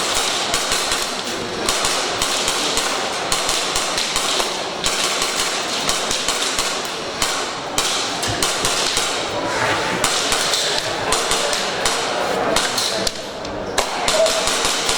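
Airsoft guns firing in a dense, rapid clatter of sharp snaps and impacts, many shots a second with only brief lulls.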